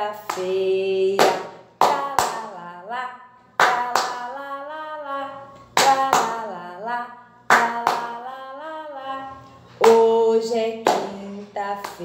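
A woman singing a children's song while clapping her hands. Sharp claps come about every one to two seconds, with sung phrases between them.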